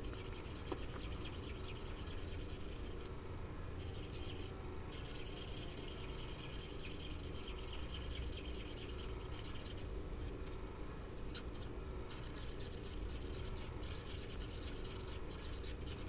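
Hand file scraping back and forth across a forged steel tenon, shaping it to fit a mortise, with short pauses between runs of strokes.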